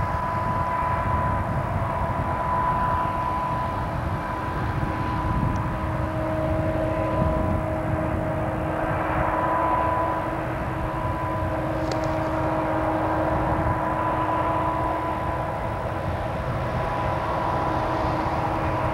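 A consist of four Southern Pacific diesel locomotives working a freight up the grade, a steady low rumble with a steady whine over it.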